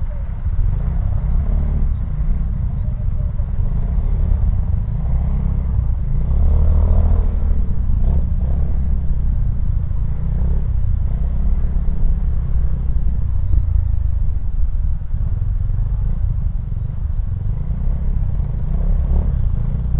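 Motorcycle engine and surrounding traffic heard while riding slowly in stop-and-go traffic: a steady low rumble that swells briefly about seven seconds in.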